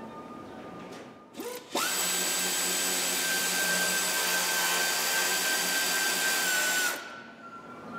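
Power ratchet unscrewing a Torx bolt that holds the starter motor. A short blip of the trigger comes about a second and a half in. Then it runs steadily for about five seconds: a whine rises quickly to a high steady tone over a loud hiss, and it stops about a second before the end.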